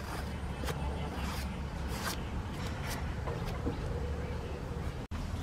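Metal vegetable peeler scraping strips of skin off an eggplant in a run of short strokes, a little under one a second, over a steady low rumble.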